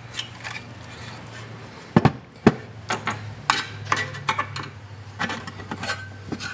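Sheet-metal housing of a variable frequency drive being handled on a workbench: knocks and clinks of metal on the bench top, with two sharp knocks about half a second apart around two seconds in as it is laid down flat, then lighter taps and rubbing.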